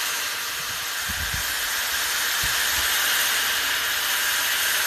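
Electric hand drill running at top speed with its bit pressed at a 45-degree angle against a glazed ceramic tile to seat the hole: a steady, hissy whir with a few low knocks about a second and two and a half seconds in.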